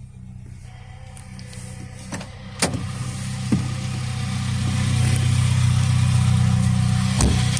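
Peugeot 205 1.4's four-cylinder petrol engine running steadily, getting louder from about three seconds in, with a drone from the gearbox that the owner puts down to a worn transfer gear spline. Two sharp clicks, one near the middle and one near the end.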